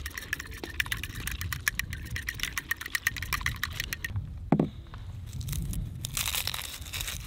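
Fork beating eggs in a ceramic bowl: a quick run of light clinking strokes against the bowl that stops about four seconds in. A short low sound follows, and near the end a dry crinkling rustle as the papery skin is peeled off a garlic clove.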